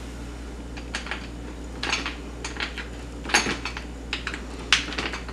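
Tongue-and-groove pliers gripping and turning a Teflon-taped brass compression fitting on a plastic inline refrigerator water filter, tightening it down to stop a leak: a series of short metallic clicks and scrapes, roughly one every half second to second.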